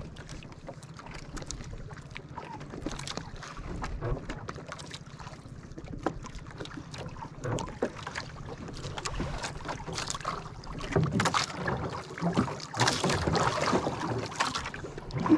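Small waves lapping and slapping against the hull and bamboo outriggers of a small boat, with wind on the microphone and scattered light knocks. It grows louder near the end.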